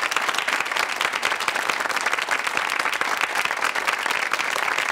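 Studio audience applauding: steady clapping from many hands.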